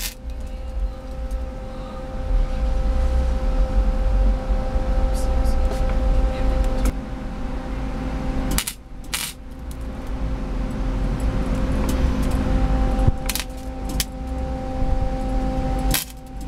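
Electric welder laying weld onto a steel door-lock catch to build it up: a steady crackling arc over a constant hum, in two long runs with a short break about halfway.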